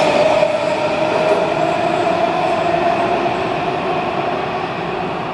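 Washington Metro train leaving the station: wheel-on-rail rumble with a steady whine, slowly fading as the train pulls away into the tunnel.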